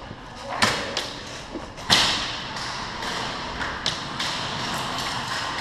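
Airsoft guns firing a handful of single sharp shots at uneven intervals, the loudest about two seconds in, over a steady outdoor hiss.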